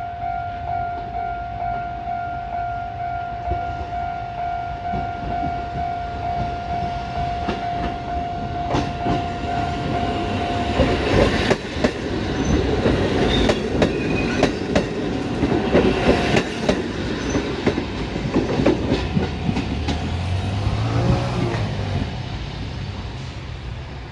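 A level-crossing warning bell rings steadily and stops about eleven seconds in. Meanwhile a Kotoden retro electric train rolls close by over the station points, its wheels clacking over the rail joints. The rolling noise is loudest in the middle and eases off near the end.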